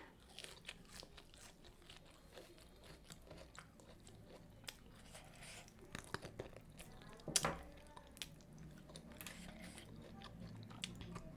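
Close-miked chewing of food, wet mouth sounds with crisp crunching bites scattered throughout, the sharpest crunch a little past halfway.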